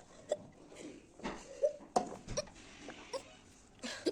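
A woman hiccuping repeatedly, six or seven short sharp hiccups at uneven intervals of roughly half a second to a second, each with a small voiced squeak. They are persistent hiccups that will not stop.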